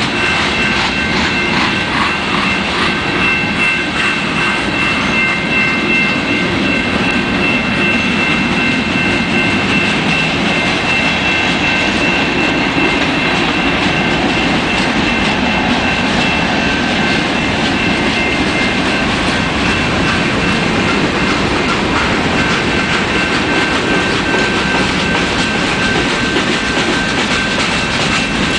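Freight train rolling past at close range, its wheels clacking over the rail joints, with a diesel locomotive passing mid-train. Several steady high-pitched ringing tones sound above the wheel noise throughout.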